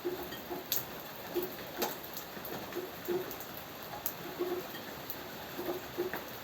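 Steady rain hiss with drops tapping on a surface, and a sharper, louder drip every second or so.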